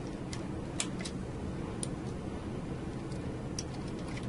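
About five small, sharp clicks at uneven intervals, the loudest near the start, as secondary lead connectors are pushed into the secondary terminal tray of an Eaton Series NRX circuit breaker. A steady low background noise runs underneath.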